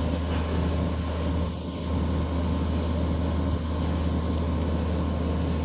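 Fire engine running at the pump for the hose attack on a truck fire: a steady low engine drone with a noisy hiss over it.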